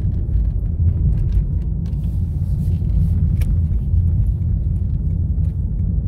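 Steady low road and engine rumble heard inside the cabin of a moving car.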